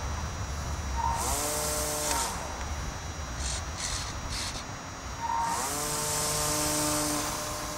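Electric motor and propeller of an RC Cessna model plane whining at full throttle in two runs, a short one and then a longer one for the hand launch, each settling to a steady pitch. The owner thinks the motor is underpowered.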